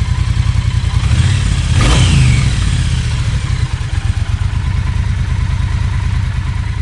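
Triumph Bonneville T120's parallel-twin engine idling with an even, pulsing beat. The throttle is blipped once about a second and a half in, the pitch rising and falling back to idle.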